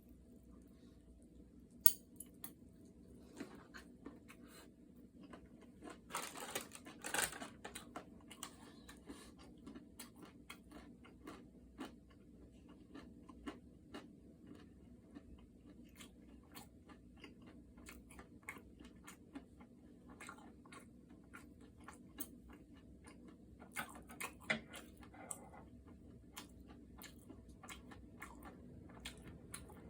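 A person chewing and crunching food up close, with many small wet clicks of the mouth and a few louder bites, the loudest about two seconds in and clusters around a quarter and four-fifths of the way through.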